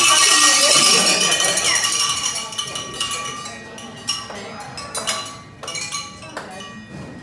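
Small handheld bells shaken by several people: a dense, loud jangle that thins after about two seconds into scattered single clanks, with voices mixed in.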